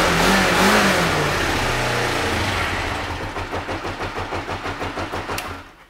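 2009 Kawasaki Ninja 500R's parallel-twin engine revved with a couple of throttle blips, then dropping back to a pulsing idle that cuts off suddenly near the end.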